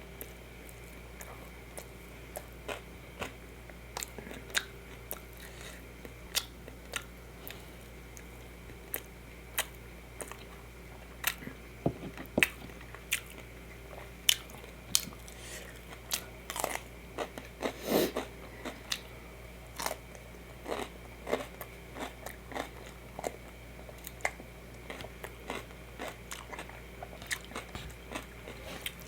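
Close-miked eating: a person chewing and biting, with many sharp, irregular crunches and wet mouth clicks. A louder, longer crunch comes about two-thirds of the way through.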